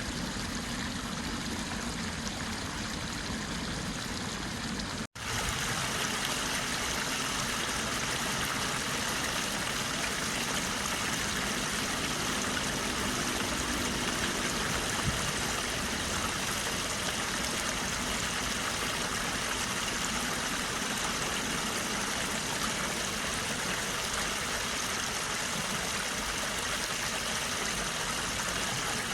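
Water flowing steadily, an even rush of sound that drops out for an instant about five seconds in where the recording is cut, then carries on unchanged.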